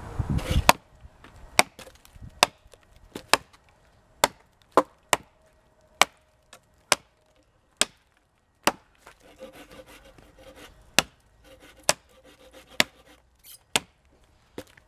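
A hatchet chopping into a dead, dry branch: about fifteen sharp, separate strikes of steel on wood, roughly one a second, with a short pause about nine seconds in. A moment of wind noise on the microphone comes before the first strikes.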